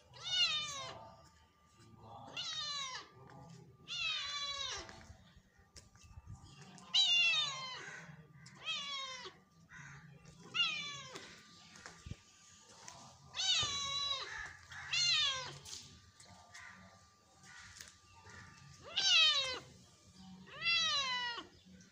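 An orange tabby cat meowing over and over: about eleven drawn-out meows, each falling in pitch, spaced a second or two apart with a few longer pauses.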